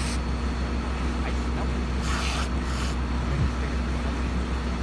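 Steady low drone of a running engine, with a short hiss about two seconds in.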